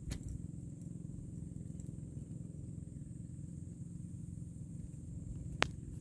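Steady low rumble of wind buffeting a phone microphone. A single sharp tap comes near the end, a footstep on the concrete steps.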